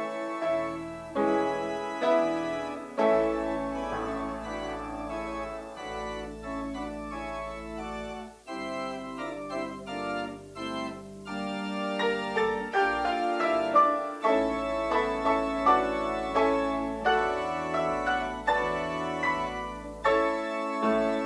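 Church organ playing closing music: chords that change every second or so over deep held bass notes.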